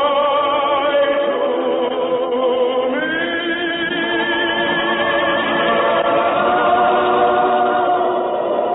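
Radio choir singing long held notes with vibrato in several voices; a new, higher chord comes in about three seconds in. The sound is muffled, as in an old broadcast recording.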